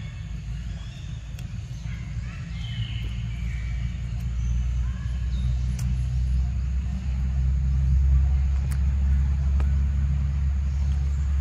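A low, steady engine rumble, like a motor running at idle, with a few faint high chirps in the first half.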